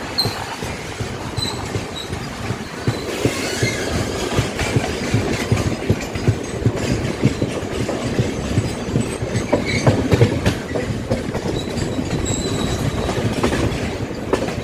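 Moving train heard from a passenger coach running alongside a container freight train: steady rumble and clatter of steel wheels on the rails, with a few brief high wheel squeals.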